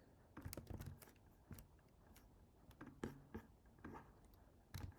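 Near silence broken by scattered faint clicks of a computer keyboard and mouse.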